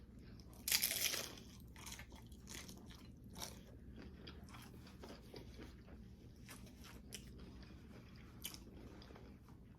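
A bite into a crunchy low-carb taco shell a little under a second in, then steady, faint chewing with small crackles of the shell.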